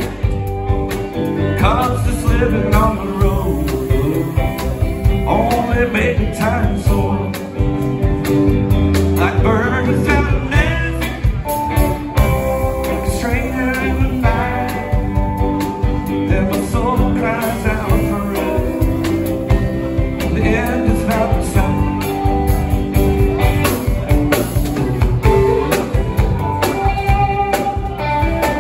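Live rock band playing: electric guitars, bass and a drum kit, with a male lead vocal singing over them.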